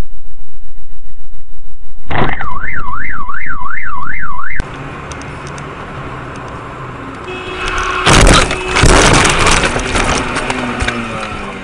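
Car alarm siren warbling up and down about twice a second, which cuts off abruptly. Then a car's road noise, and about eight seconds in a loud crashing clatter that lasts a couple of seconds and dies away.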